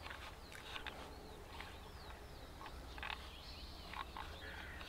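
Faint, scattered frog croaks mixed with short bird chirps, irregularly spaced over a quiet background.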